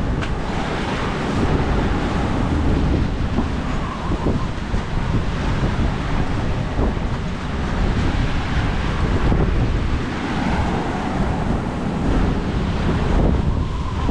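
Strong wind buffeting the microphone, with sea waves washing and breaking around a sailing yacht as a squall front builds.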